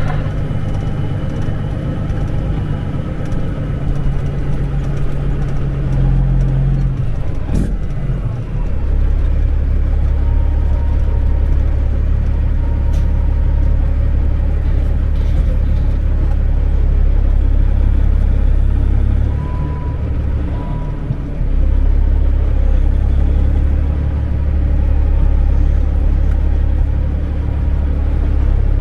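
Semi truck's diesel engine running steadily. About seven and a half seconds in there is a sharp click, after which the engine note settles lower and stays steady.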